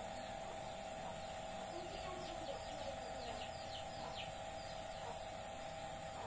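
Birds chirping faintly, a quick run of short falling chirps about two to four seconds in, over a steady hum.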